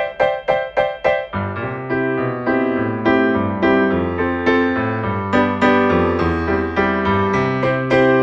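Piano music: quick repeated chords for about the first second, then a melody over held bass notes.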